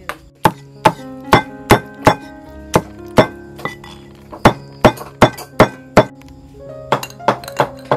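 Meat cleaver chopping cooked beef on a cutting board: sharp chops at about two or three a second, a short pause near the end, then a quicker run of lighter chops.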